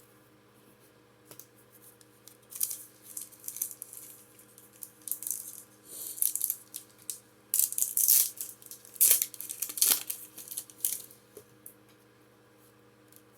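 Foil booster pack wrapper of Pokémon trading cards being torn open and crinkled: a run of irregular crackling rustles that grows loudest in the second half and stops about eleven seconds in, over a faint steady electrical hum.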